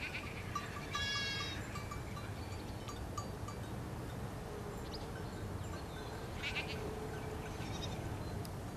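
A sheep bleating about a second in, with a second short call about six and a half seconds in, over a row of faint light clinks.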